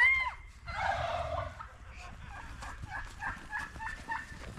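Children squealing and shouting while playing in the snow: a loud, high shriek at the start, a burst of shouting about a second in, then a run of short yelps.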